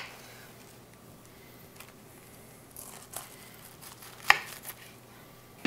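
Chef's knife slicing through a head of raw green cabbage on a wooden cutting board: a few short crisp crunches about three seconds in, then a sharper, louder cut just after four seconds, with quiet between the strokes.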